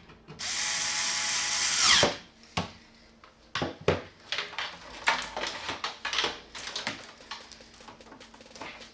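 Electric screwdriver running for about a second and a half, then winding down in pitch as it stops, followed by scattered clicks and knocks of parts being handled.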